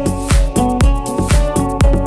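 Electronic house music with a steady kick drum beating about twice a second under sustained synth chords.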